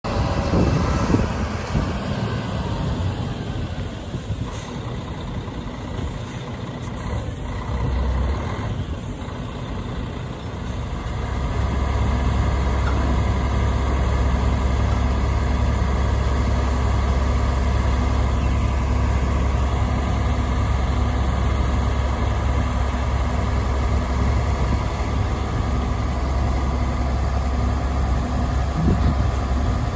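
MAN TGA 32.360 mixer truck's straight-six diesel engine running. It gets louder and steadier about eleven seconds in, as the engine drives the hydraulics raising the truck's conveyor boom.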